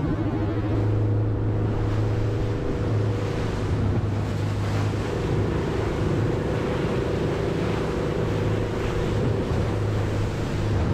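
Rigid inflatable boat running at speed through choppy sea: a steady engine drone under the rush of water and spray along the hull, with wind buffeting the microphone.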